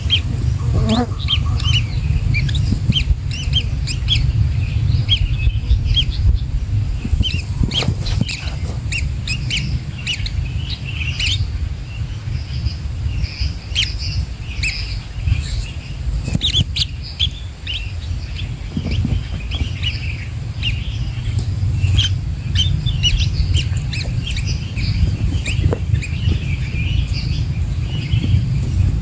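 Birds chirping: many short high chirps in quick succession throughout, over a steady low rumble.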